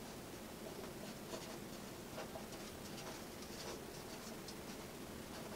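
Pen writing on paper: faint, uneven scratching of quick handwriting strokes.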